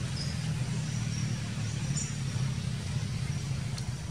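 Steady low rumble of distant motor traffic, with a few faint short high chirps.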